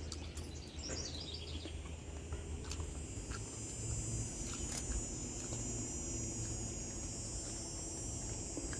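Outdoor ambience: a bird gives a quick descending run of high notes about half a second in, then a steady high-pitched buzz sets in from about three and a half seconds, over a low steady rumble and a few soft clicks.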